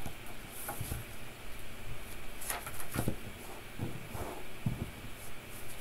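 A paper notebook being handled and its pages turned: scattered soft paper rustles and small knocks, with two sharper taps about two and a half and three seconds in.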